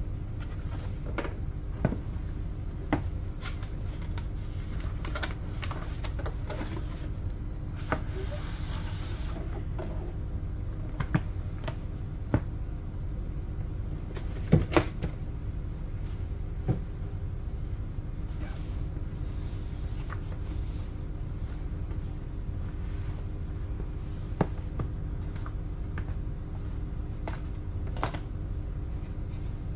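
Cardboard product boxes being handled, slid and set down on a table: scattered taps and knocks, the loudest a pair about halfway through, with a brief sliding rustle about eight seconds in, over a steady low hum.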